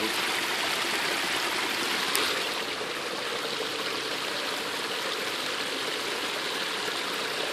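Creek water rushing steadily through a beaver dam of sticks and mud. It eases a little after about two and a half seconds.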